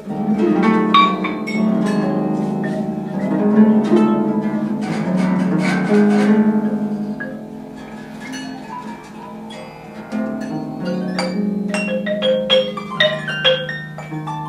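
Two pedal harps improvising freely, plucked notes ringing into one another over low sustained tones. The playing thins out and softens about halfway through, then picks up again with quick, bright high notes near the end.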